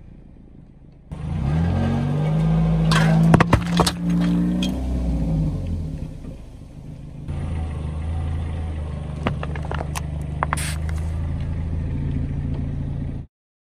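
Car engine running at low revs, rising briefly as the car moves off, while a tyre rolls over and crushes packaged food: plastic drink cups, a foil pouch and flat tin cans. A few sharp cracks and pops come as the containers burst. The sound changes abruptly about seven seconds in and cuts off suddenly near the end.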